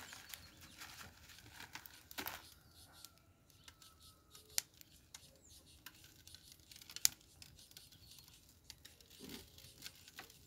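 Coarse rock salt being scattered by hand onto a large slab of raw beef ribs: faint scattered crackles and rustling, with two sharper clicks about midway and two-thirds of the way through.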